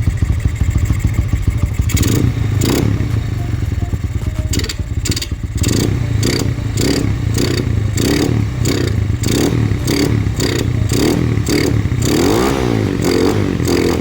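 Honda Megapro Primus motorcycle engine running through its aftermarket exhaust. It idles steadily, then is blipped with quick throttle revs about twice a second, and ends with two longer revs up and back down.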